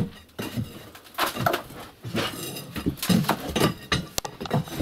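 Metal rod scraping and knocking inside the flue channel of a brick stove, raking out soot, in a run of irregular scrapes and clinks.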